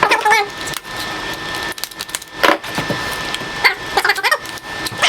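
Stiff plastic packaging being pulled and worked off a toy dart blaster, crackling and creaking with short squeaks, with a sharp crack about two and a half seconds in.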